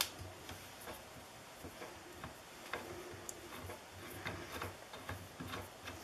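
Metal cabinet knob being hand-tightened onto its mounting screw through a cabinet door, making faint, irregular small clicks and ticks.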